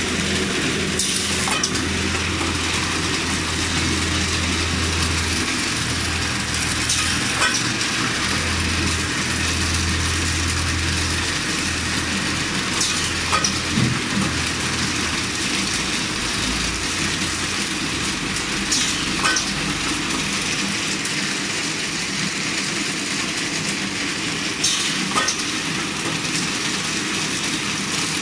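Automatic paper straw multi-pack wrapping machine running with a steady mechanical hiss and hum. A pair of sharp clicks comes about every six seconds.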